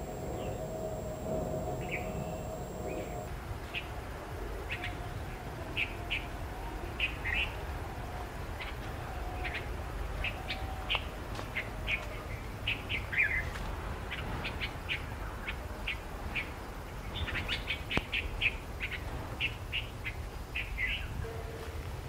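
Wild birds chirping in woodland: many short, high calls, sparse at first and coming thick and fast from about four seconds in, over a low steady rumble. A faint steady hum underneath stops about three seconds in.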